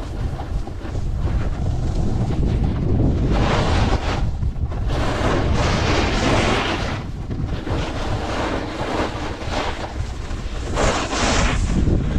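Wind rumbling steadily on the camera microphone while a snowboard's edge scrapes and hisses across packed snow in several carved turns, the longest and loudest about halfway through.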